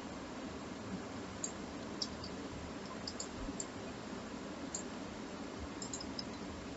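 Faint, scattered clicks of a computer mouse and keyboard, a few at irregular intervals, over a steady microphone hiss.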